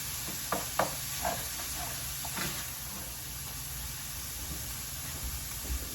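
Food sizzling in a pan with a steady hiss, with a few sharp knocks against the pan in the first second and a half and a softer one a little later.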